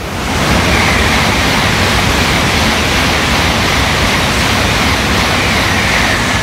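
N700-series Shinkansen bullet train passing straight through the station at high speed: a loud rushing of air and wheels that swells within the first half second, holds steady as the carriages stream by, with a faint high whine over it.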